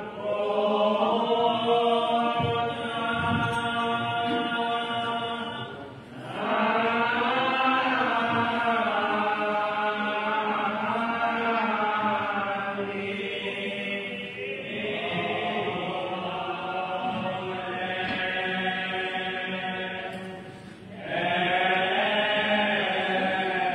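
Slow religious chant sung in long drawn-out phrases, four phrases with short breaks between them, over a steady low note.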